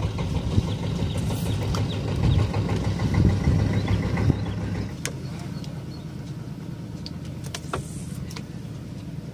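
Boat engine running with a steady low hum, loud at first and then easing to a lower, steady level about five seconds in. A few sharp clicks come near the end.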